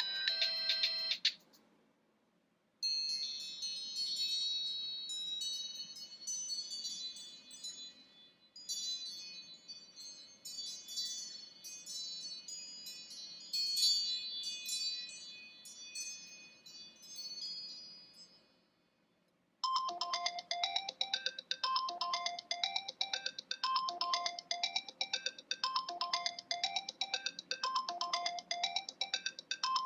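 Stock iOS 7 iPhone ringtones played one after another. One tone ends just after the start, then after a short pause a bright chiming ringtone plays for about fifteen seconds. After another pause, a quicker ringtone repeats a short note pattern about once a second.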